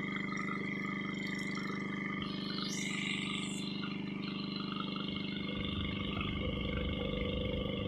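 Pumpboat engine running steadily at cruising speed, an even drone with water rushing past the hull. A low rumble of wind on the microphone grows from about five seconds in.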